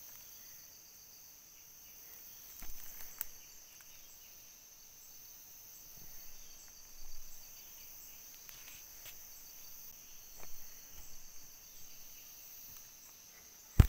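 Steady high-pitched insect chorus, with a few soft rustles and knocks scattered through it.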